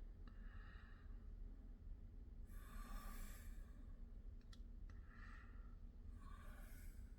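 Faint breathing, four soft breaths, with two light clicks about four and a half seconds in.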